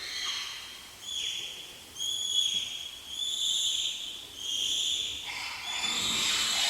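Chimpanzee giving a run of about five high-pitched shrill calls in quick succession, then breaking into a louder, harsher, noisier call near the end.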